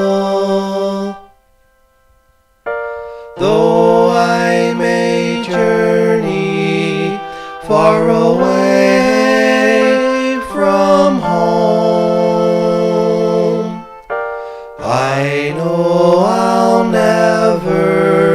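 Music: long, sustained keyboard chords that change every few seconds, with a break of about a second and a half soon after the start.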